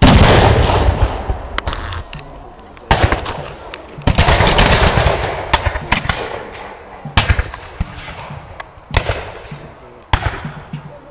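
Black-powder musket and cannon fire. Heavy blasts come at the start and again about four seconds in, each trailing off over a couple of seconds. Sharp single shots are scattered through the rest, about one every second or so.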